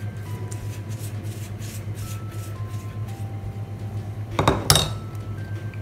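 A utensil knocks twice against a dish about four and a half seconds in, a loud clink. Before it, a pastry brush strokes lightly over oiled dough, over a steady hum and soft background music of long held notes.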